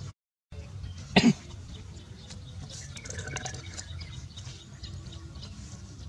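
A short, loud, cough-like double grunt from an animal about a second in, over a steady low background rumble.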